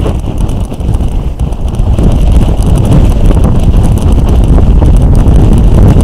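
Strong gusty wind buffeting the microphone: a loud low rumble that eases slightly about a second in, then picks back up.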